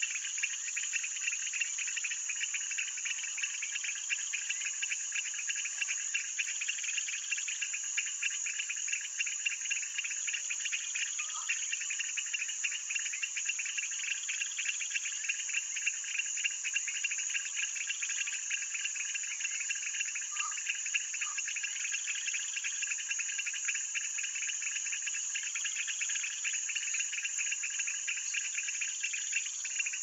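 Insect chorus: a steady high-pitched trill over a lower, rapidly pulsing buzz that swells a little every couple of seconds. A few faint short chirps come through near the middle.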